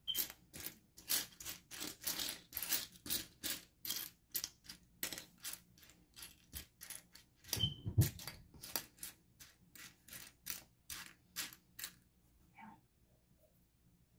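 Small plastic mini building bricks clicking and rattling against one another as a hand rummages through a loose pile on a tabletop, about three clicks a second, stopping about twelve seconds in. A duller, louder knock about eight seconds in.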